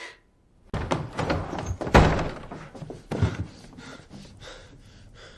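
A run of heavy thuds and knocks. The loudest is a sharp slam about two seconds in, another thump follows about a second later, and the sound then dies away.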